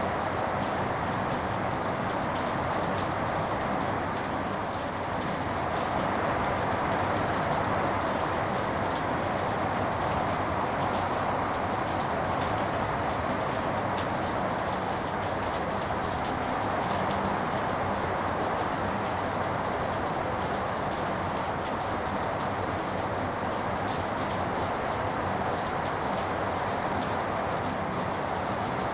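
Heavy rain pouring steadily in a thunderstorm, an even rushing hiss with faint pattering ticks.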